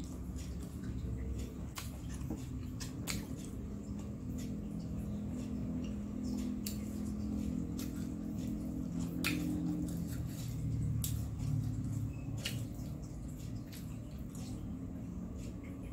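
Close-up mouth sounds of someone eating crispy fried snacks: chewing with wet, squishy mouth noises and sharp crunches of the crisp fried crust every second or so. A steady low hum runs underneath.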